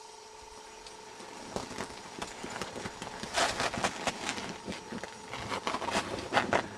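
Shovels scraping and crunching into packed snow in irregular strokes, loudest about three and a half seconds in and again around six seconds.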